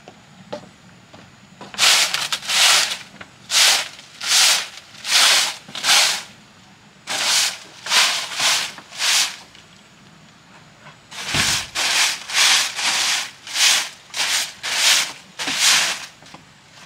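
Rhythmic scraping strokes, each about a third of a second, coming about one and a half a second in runs of two, four, four and about nine, with short pauses between runs.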